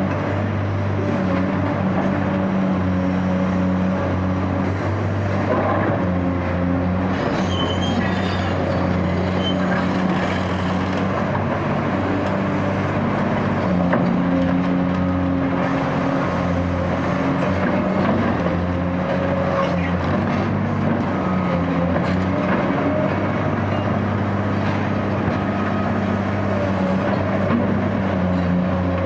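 Caterpillar 385C demolition excavator's diesel engine running steadily under working load, its pitch shifting a little as the hydraulics take up load, with scattered knocks from the demolition work.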